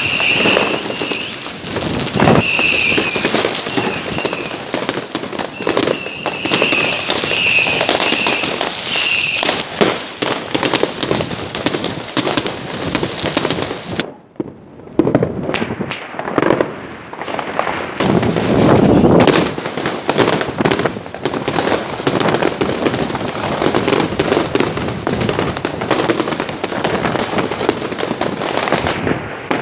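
Fireworks and firecrackers going off nonstop: rapid, dense crackling bangs, with a short lull about halfway through. A repeated high tone sounds over the first third.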